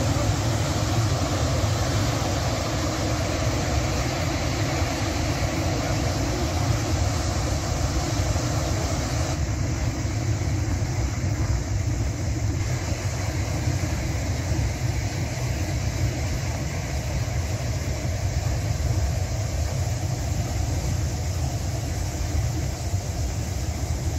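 Rushing of a muddy flash-flood torrent: a steady, loud noise heaviest in the low rumble, its higher hiss thinning a little about nine seconds in.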